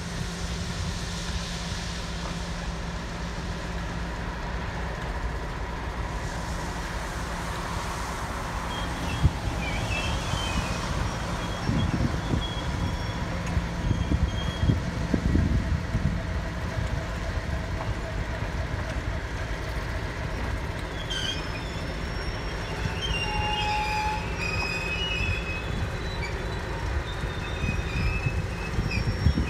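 Class 56 diesel locomotive's Ruston-Paxman V16 engine running with a steady low drone as it moves slowly with its wagons. From about two-thirds of the way in, the wheels squeal in short high notes.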